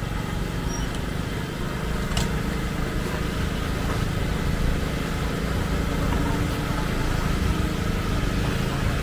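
Steady low rumble with a faint held hum, and a brief sharp click about two seconds in.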